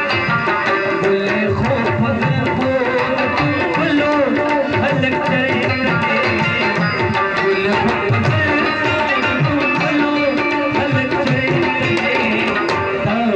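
Live Pashto folk music: tabla drums played in a steady rhythm with a harmonium carrying the melody.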